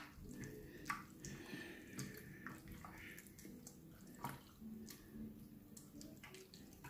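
Hands squeezing and turning beef pieces in a glass dish of soy-sauce marinade: faint, irregular wet squelches and drips.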